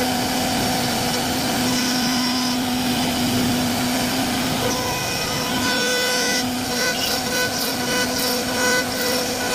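Computer-controlled wood carving machine (CNC router) cutting wood: a steady spindle whine held over continuous cutting noise, the pitch of the whine shifting a little about halfway through.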